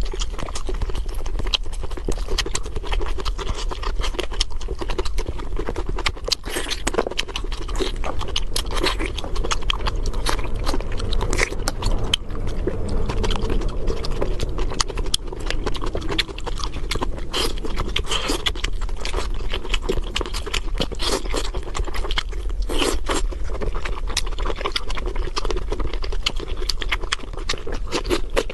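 Close-miked eating: continuous wet chewing and mouth smacking, with a steady low hum underneath.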